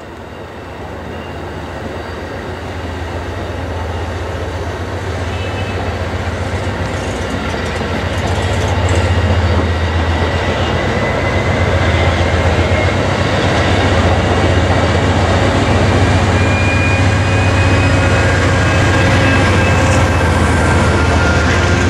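Amtrak passenger train reversing slowly past at close range: a steady rumble of wheels on rail over a low hum, growing louder over the first ten seconds and then holding. A thin, high wheel squeal drifts slowly in pitch above it.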